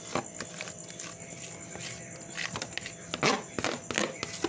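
Thick cake batter poured from a plastic bowl into a foil baking tray, with a few light knocks early on. A few short animal calls in quick succession about three to four seconds in, each dropping in pitch; these are the loudest sounds.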